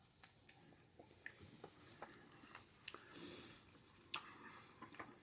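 Faint eating sounds: a person chewing a soft chocolate dessert, with scattered small clicks and a soft noisy patch about three seconds in.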